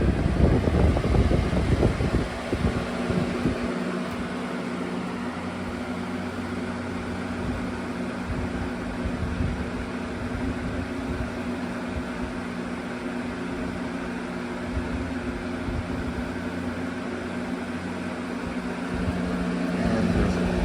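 CoolMaster (Aerospeed) PBX100 20-inch box fan running on high: a steady rush of air over a constant motor hum. Air buffets the microphone for the first two seconds, and the sound swells briefly near the end.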